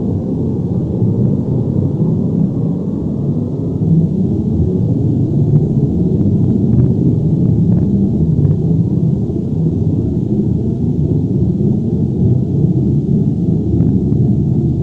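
Earthquake or avalanche rumble sound effect: a deep, continuous low rumble with faint scattered crackles over it.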